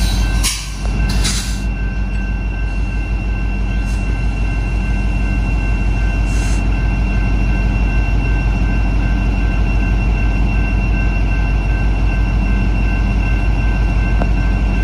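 BNSF diesel-electric locomotives running at close range: a loud, steady low engine rumble with a thin, steady high whine over it.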